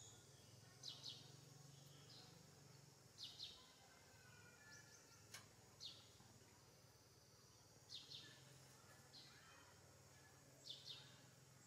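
A bird calling faintly: short pairs of high, quickly falling chirps, repeated every two to three seconds over a low, steady outdoor background, with one sharp click near the middle.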